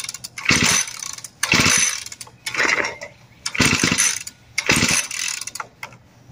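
Recoil pull-starter on a Legend Force 4-cycle tiller engine, yanked five times about a second apart for a cold start on prime and choke. Each pull gives a rasping rush of the cord and the cranking engine, but the engine does not catch.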